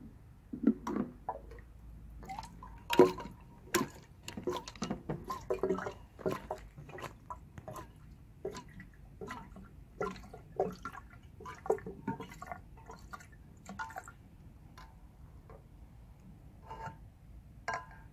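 Fuel injector cleaner glugging out of an upturned can through a plastic spout into a car's fuel filler neck. Irregular gurgles and drips come thick and fast for the first several seconds, then thin out to a few last drips as the can runs empty.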